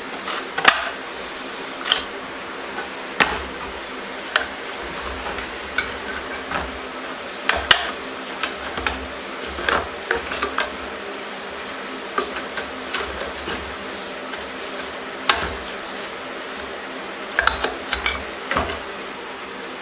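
Small metal vise parts clinking and knocking as they are handled and worked on, in irregular sharp clicks spaced about a second apart, over a steady low hum.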